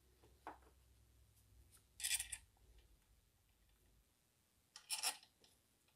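Faint handling noises from hand work on an engine's timing end: a small click about half a second in, then two short scraping rattles about two and five seconds in, as bolts are fitted to secure the camshaft locking tool.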